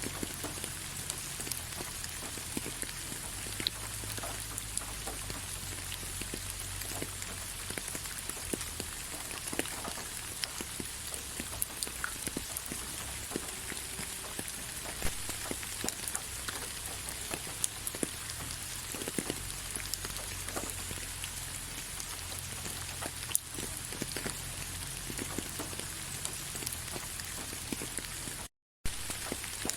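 Steady soft rain: an even patter with many scattered single drops ticking through it. The sound cuts out completely for a split second near the end.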